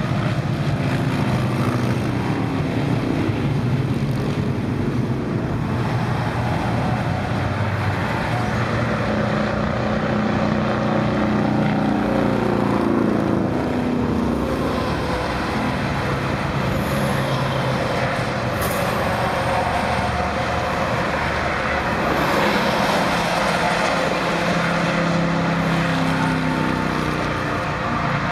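Interstate highway traffic passing below: motorcycles, cars and trucks, with a steady rush of tyre noise and engine notes that shift in pitch as vehicles come and go.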